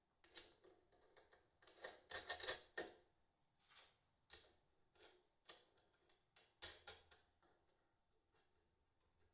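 Faint metallic clicks and light rattling as a nut and washer are fitted by hand onto the terminal stud of a 250-amp fuse, with a quick cluster of clicks about two to three seconds in and scattered single clicks until about seven seconds in.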